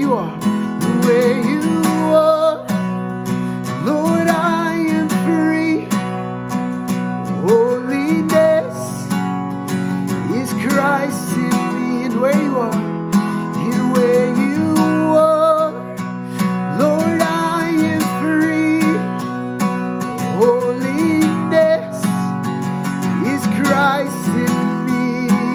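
Music: strummed acoustic guitar chords with a melody line over them, an instrumental passage of a worship song.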